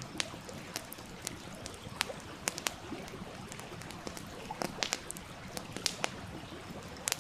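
Wood campfire crackling, with irregular sharp pops that come in a quick cluster about two-thirds of the way through. Under it runs the steady rush of a stream.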